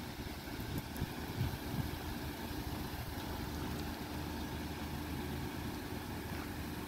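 2023 Hyundai Sonata running quietly at low speed as it creeps across a parking lot: a steady, even engine hum.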